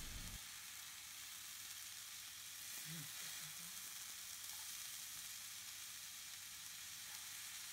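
Faint, steady sizzle of red lentils and vegetables frying in oil in a frying pan as they are stirred with a spatula.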